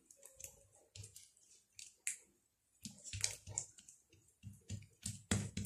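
Hands patting and pressing a sheet of ghee-and-butter-greased dough flat on a stone countertop: faint, scattered wet squishes and small slaps, coming more often in the second half.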